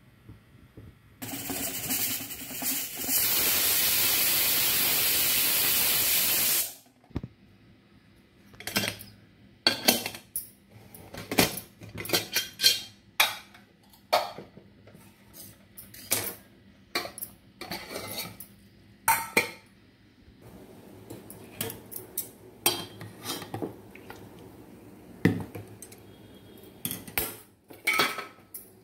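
Pressure cooker releasing steam through its weight: a loud hiss of about five seconds that cuts off suddenly. Then a run of metal clinks and clatters as the opened cooker and the metal vessels stacked inside it are handled.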